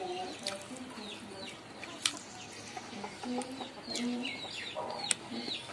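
Chickens clucking in short repeated notes, with higher chirping calls over them and a few sharp clicks.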